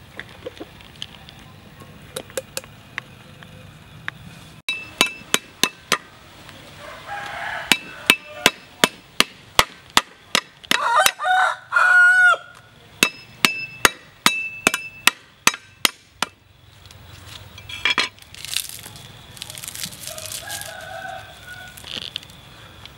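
Cleaver chopping on a wooden chopping board, sharp knocks at about two a second, with a rooster crowing once about halfway through. Near the end the chopping stops and leafy greens rustle as they are crushed by hand.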